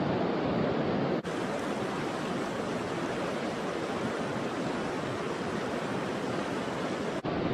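Steady rush of flowing river water, with a brief dropout about a second in and another near the end.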